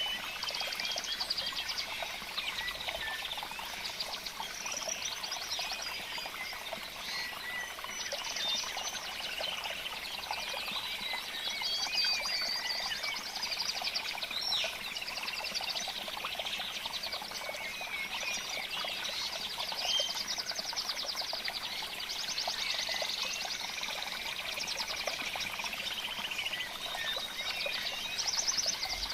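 A dense chorus of small birds chirping and trilling without pause, high-pitched, with many overlapping calls and quick rising and falling notes.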